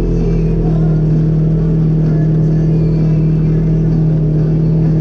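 An engine running at a steady speed, a constant even drone.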